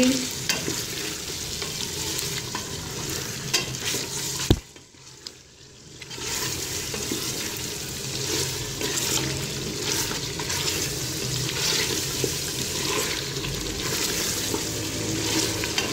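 Beef trotters sizzling in hot oil in a pressure cooker pot while a wooden spoon stirs and scrapes them against the pot. After a click about four and a half seconds in, the sound briefly drops away, then the frying and stirring resume.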